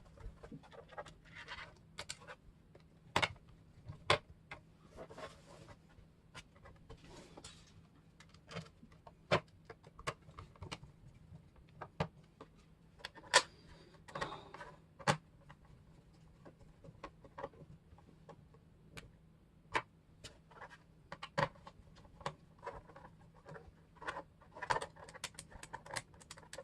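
Faint, irregular clicks, ticks and short scratches of a small screwdriver turning screws into a plastic laptop bottom case, with small parts being handled on it.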